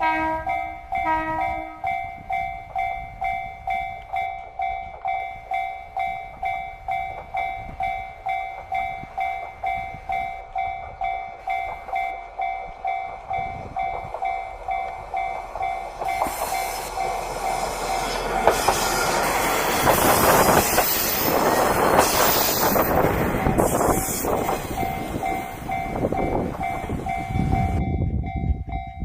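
Japanese level-crossing alarm clanging at a steady beat, with two short horn toots near the start. From about 16 s a KiHa 48 diesel railcar train runs past close by, its engine and wheels clattering over the rail joints. The pass is loudest around 20 to 22 s and swamps the bell.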